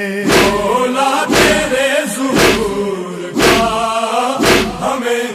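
Noha lament sung by a group of men, holding a wordless mournful melody over a steady vocal drone, kept in time by deep thuds of matam chest-beating about once a second.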